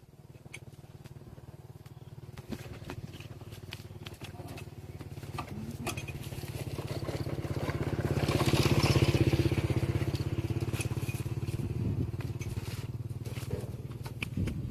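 Small engine running with a steady pulsing hum, growing louder to a peak about nine seconds in and then fading, as it passes by. Scattered light clicks are heard over it.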